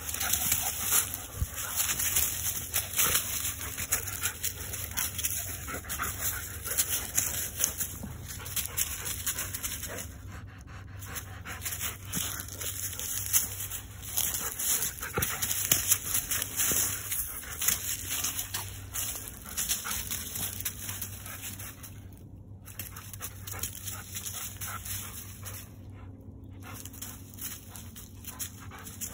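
Dry leaves crunching and rustling underfoot as a Rottweiler and a person walk through them, with the dog panting. A steady low hum runs underneath.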